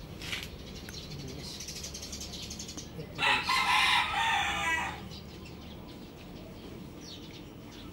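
A rooster crows once, starting about three seconds in and lasting about two seconds. Around it, a few faint clicks of metal transmission parts being handled.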